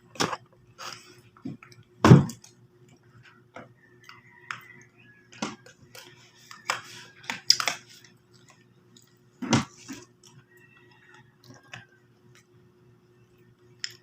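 Eating sounds at a meal: spoon and fork clicking and scraping on plates, with chewing in between. The loudest knocks come about two seconds in and again near ten seconds, over a faint steady hum.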